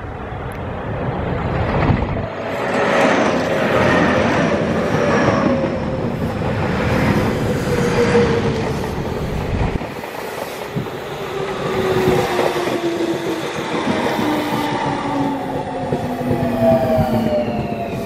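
Tobu 30000 series electric multiple unit running past on the Tobu Tojo Line. Its wheels clatter over rail joints, then the inverter and traction motor whine falls steadily in pitch over the last several seconds as the train slows under braking.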